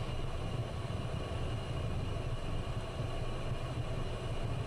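Steady cockpit noise of a Cessna Citation business jet taxiing, its turbofan engines at idle: a low hum under an even hiss, with faint steady high-pitched whines.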